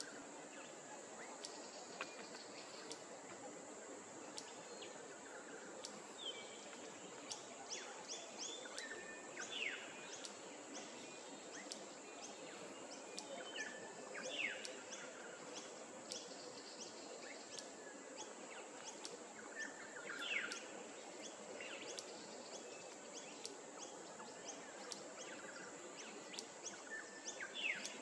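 Quiet outdoor ambience: small birds giving short, quickly falling chirps every few seconds over a steady background hiss.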